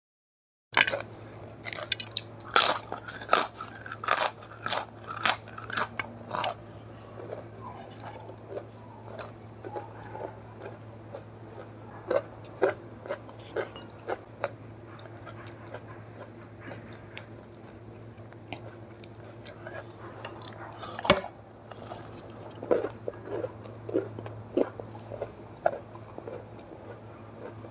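Close-up crunching and chewing of crisp papad and fried samosa: a run of loud sharp crunches in the first six seconds, softer chewing through the middle, then another sharp snap about three-quarters of the way in followed by more crunching. A low steady hum sits underneath.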